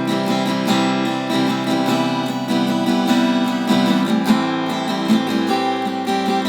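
Fender acoustic-electric guitar, freshly fitted with new strings, being played: picked and strummed notes and chords follow one another several times a second, with a soft tone.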